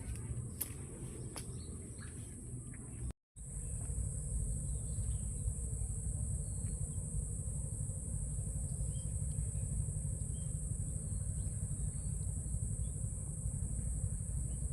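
Steady, continuous high-pitched chorus of insects over a low rumble, with a few faint bird chirps; the sound cuts out completely for a moment about three seconds in.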